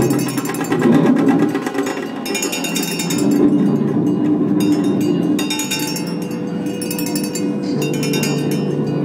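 Improvised percussion on pots, pans and other metal objects: rapid, irregular clinking and ringing metal strikes over steady low sustained tones.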